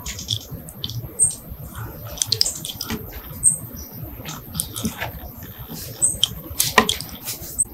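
Scattered small clicks and taps of a small chrome Desert Eagle model pistol being handled and turned over in the hands.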